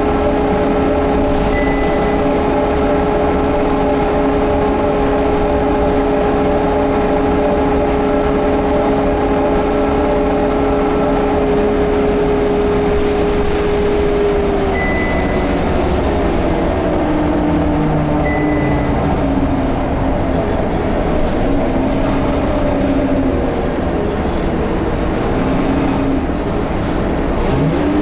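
Scania K230UB bus running with a loud steady whine made of several tones and a high whistle over the engine rumble. About halfway through, the whine tones glide down in pitch as the bus slows, and the high whistle swells and then falls away. The uploader suspects these strange noises come from the turbo and the hub reduction axle.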